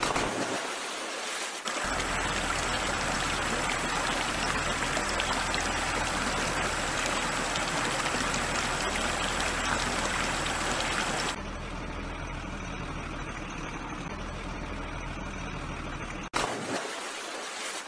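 Steady rushing and sloshing of shallow water, stirred up as a plastic toy dump truck ploughs through muddy water. The sound turns quieter and duller abruptly about eleven seconds in, with another sudden change near the end.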